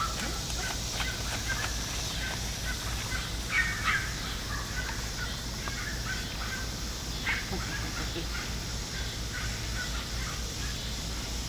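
Standard poodle puppies giving short, high squeaks and whimpers scattered throughout, a few louder ones around four seconds and seven seconds in, over a steady low hum.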